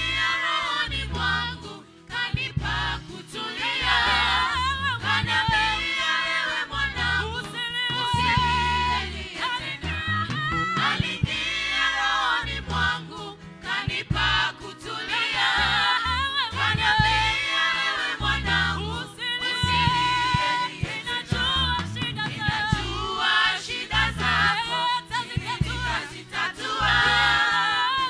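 Gospel worship music: a choir singing over a band with a steady bass beat.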